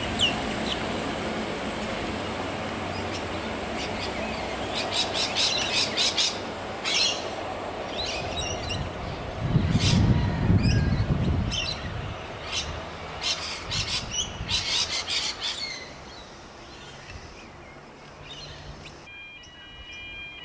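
Birds chirping and calling in repeated short bursts over the low hum of a diesel railcar's engine, which fades as the railcar moves away. A louder low rumble comes for a couple of seconds about halfway through, and the sound falls quieter near the end.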